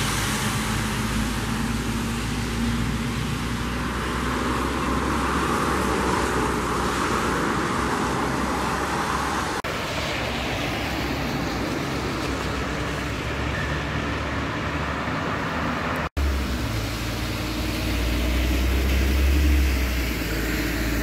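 City street traffic: cars passing on a wet road, with a steady low rumble that grows louder for a few seconds near the end.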